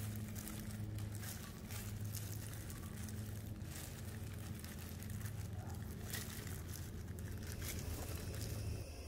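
Faint crinkling of disposable plastic food-prep gloves and soft tearing as boiled chicken breast is shredded by hand, over a steady low hum.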